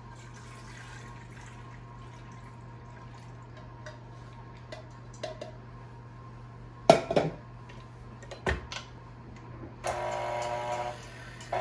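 Milk pouring into a stainless steel stand-mixer bowl, then two sharp knocks as things are set down on the counter. Near the end the stand mixer's motor starts with a steady whine, breaks off for a moment and runs again.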